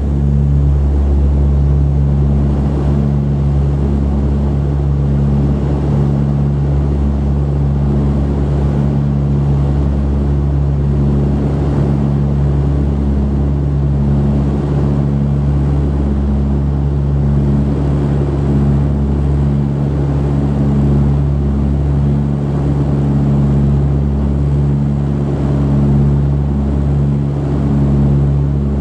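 Cabin drone of a de Havilland Canada Dash 8-100's twin turboprop engines and propellers, heard from a seat near the propeller. It is a loud, steady hum of several low tones over a rushing hiss, and does not change in pitch or level.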